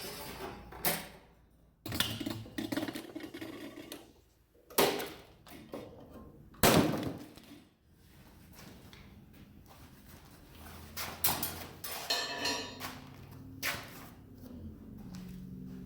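A series of hard knocks and clanks, the loudest about seven seconds in, then lighter rattling and tapping.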